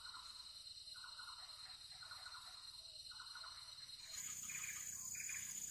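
Swamp ambience: a steady high-pitched insect drone with a short animal call repeating about once a second. About four seconds in it changes to a higher insect chirring.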